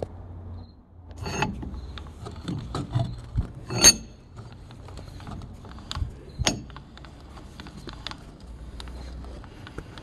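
Antique Fisher & Norris No. 3 chain vise being opened and shut with its handle: the screw and jaws working with irregular metallic clicks, scrapes and knocks, the loudest about four seconds in.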